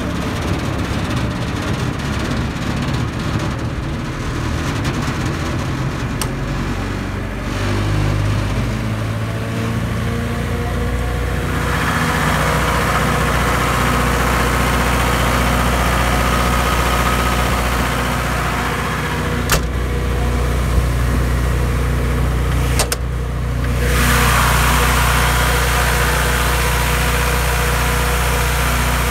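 A Cummins diesel engine on a 60 kW generator runs steadily. About twelve seconds in it becomes louder and brighter as the sound-enclosure doors are open, and a few sharp clicks come later.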